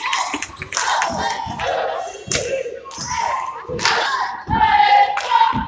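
Basketball game in a gymnasium: a basketball bouncing on a hardwood court in a run of sharp knocks, with players and spectators calling out over it.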